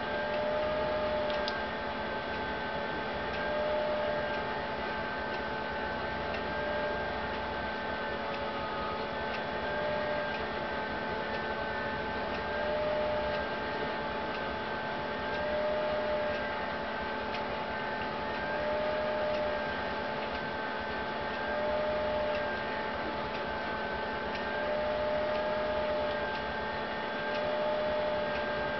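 A steady hum made of a few held tones that waver and swell slightly about every three seconds, with no thunder heard.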